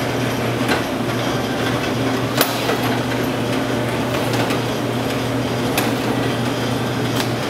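Electric meat cuber (cube steak tenderizer) running with a steady hum, with a few sharp knocks over it, the loudest about two and a half seconds in.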